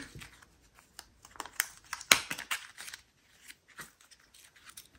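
Small plastic bag crinkling and square resin diamond-painting drills lightly clicking as they are handled, in a string of short, irregular sounds that is busiest around two seconds in.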